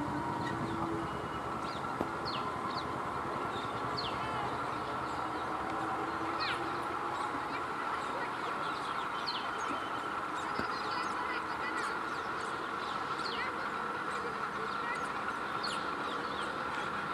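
ICF electric multiple unit (EMU) local train drawing slowly into the platform with a steady running hum. Short, high chirps that fall in pitch sound over it at irregular intervals.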